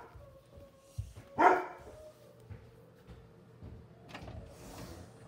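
A dog barking: one loud bark about a second and a half in, just after a short knock.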